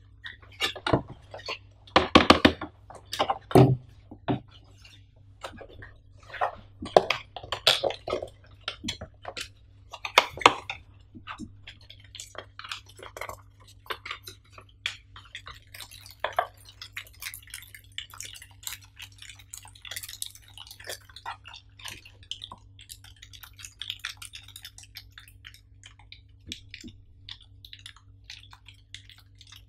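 Cardboard box of a Zoom APH-4N Pro accessory pack being handled and opened, with a few louder scrapes and taps in the first seconds, then plastic bags crinkling as the accessories are lifted out. A faint steady low hum runs underneath.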